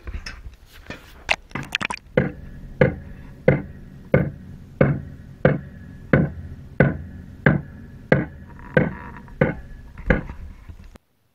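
Boot footsteps on a concrete walkway at an even walking pace, about one and a half steps a second. In the first two seconds the steps are scuffy, quicker strikes heard in air; after that they come as dull, heavy thuds carried through the pond water to an underwater microphone. The steps cut off suddenly near the end.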